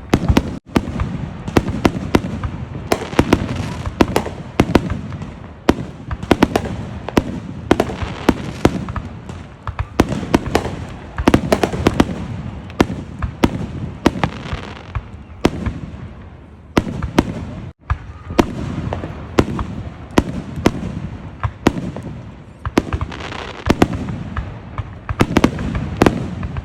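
Many fireworks and firecrackers going off at once: irregular sharp bangs and crackles, several a second, over a continuous rumble of further explosions. The sound breaks off for an instant twice.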